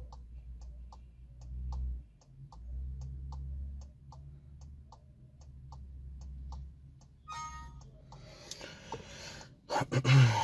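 Hazard-warning flasher of a Skoda Superb ticking steadily in the cabin, about two and a half ticks a second, over a low steady hum. About seven seconds in there is a short electronic chime, then handling rustle and a loud knock near the end.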